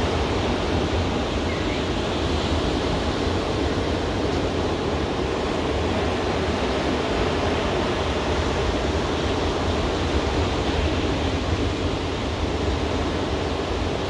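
Ocean surf breaking and washing up a sandy beach: a steady rushing noise with a deep rumble underneath and no single crash standing out.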